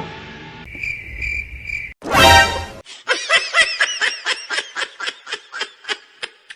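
Cartoon sound effects: background music fades out, a short high beeping tone, a loud pitched burst about two seconds in, then a rapid run of high-pitched giggles, about four a second, fading away.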